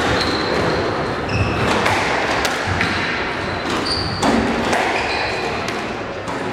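Squash rally: the ball striking rackets and walls in a string of sharp knocks, with short high squeaks of court shoes on the wooden floor.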